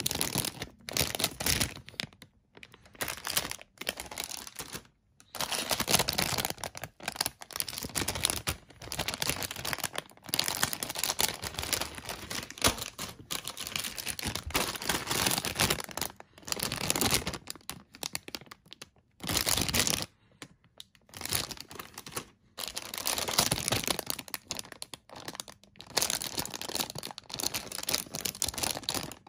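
Clear plastic bags around plastic model-kit runners crinkling and rustling as they are handled, in irregular bursts with short pauses.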